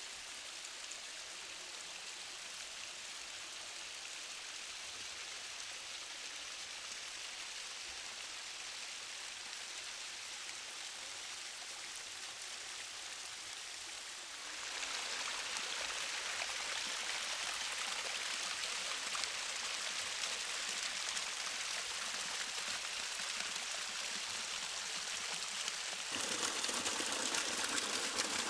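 Small waterfall splashing down over rock in a steady rush of water. It steps louder about halfway through and again near the end.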